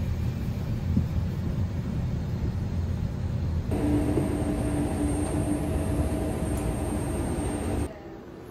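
Steady low rumble of a parked airliner's cabin, then a cut to a steadier hum with a constant tone near the aircraft's door. Near the end it drops to much quieter indoor room tone.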